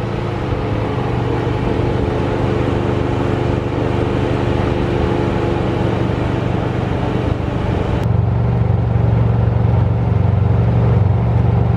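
BMW 3 Series sedan's engine running at low speed as the car creeps into a parking space, a steady hum with a few held tones. About eight seconds in the sound changes abruptly to a louder, deeper hum.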